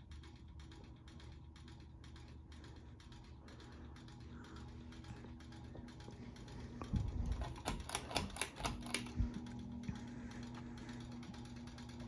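Bahama Hugger 52-inch hugger ceiling fan running, a steady motor hum with a faint ticking a few times a second. About seven seconds in, a short clatter of louder clicks and knocks lasts a couple of seconds.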